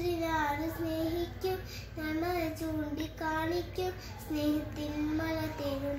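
A young girl singing solo without accompaniment, holding notes in short phrases with brief breaths between them; the melody steps lower near the end.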